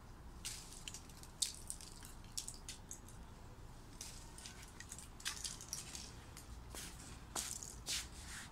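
Lemon tree leaves and twigs rustling and brushing close to the microphone in short, irregular crackles.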